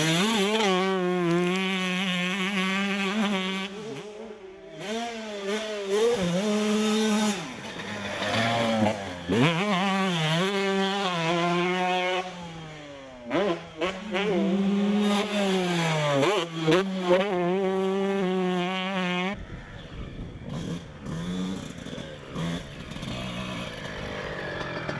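Dirt bike engine revving hard, its pitch rising and falling with the throttle and gear changes, with a few short breaks. After about 19 seconds it drops to a much quieter, rougher sound.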